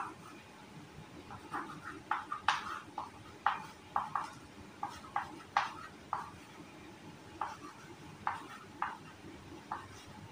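Chalk writing on a blackboard: short, irregular taps and scratches, a few each second with brief pauses between groups, as letters and symbols are chalked on.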